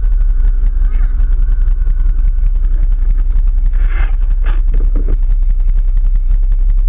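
Off-road vehicle engine running while riding over rough ground, with heavy low rumble and constant rattling knocks. A couple of brief, higher sounds stand out about four seconds in.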